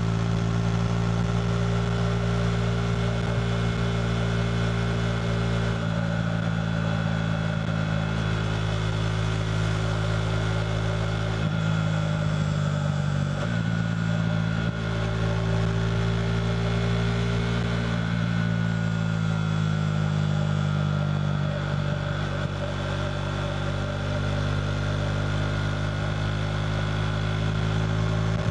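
KTM RC 390's single-cylinder engine through a Two Brothers slip-on exhaust, running at a fairly steady engine speed on the move. Its pitch rises briefly about twelve seconds in and drops back sharply, then sags gently and recovers a little past the middle.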